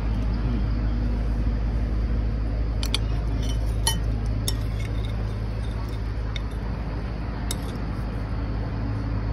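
Metal fork and spoon clinking now and then against ceramic plates while serving food onto rice and eating: a handful of short, sharp clinks over a steady low rumble.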